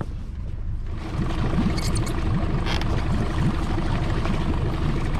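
Small fishing boat's motor running as the boat gets under way. It grows louder about a second in, and a steady hum sits over a rushing noise.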